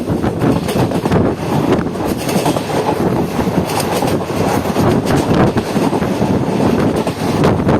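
Mangaluru–Coimbatore Intercity Express running at speed: wheels rumbling and clattering over the rails with a steady stream of knocks and rattles, plus some wind noise.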